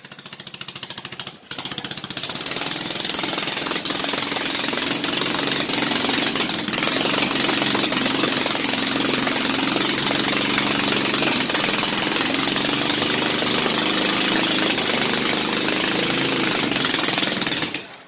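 Briggs & Stratton 8 hp single-cylinder flathead engine on a mini bike running, a loud rapid steady rattle of firing pulses whose speed wavers a little. It builds up over the first few seconds, with a brief dip about a second and a half in.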